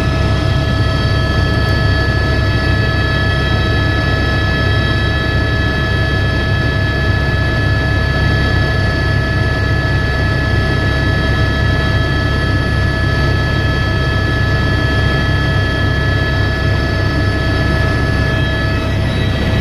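Helicopter in flight: a steady turbine whine made of several unchanging high tones over a loud, even low rotor thrum.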